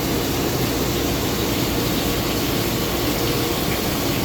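Nexturn SA-32E CNC Swiss-type lathe running under power, giving a steady mechanical hum and hiss with a faint steady tone, unchanged throughout.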